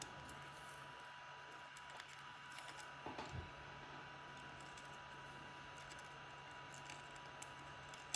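Faint scattered clicks and light taps of small plastic drone parts being handled and pressed into place, with a small knock about three seconds in, over a steady electrical hum.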